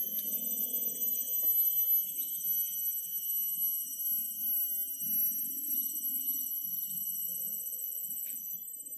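A steady, high-pitched chorus of insects, several shrill tones held at once, some finely pulsing, with a faint low murmur underneath.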